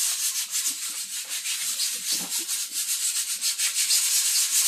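Steady scratchy rubbing noise, with a few faint low knocks about two seconds in.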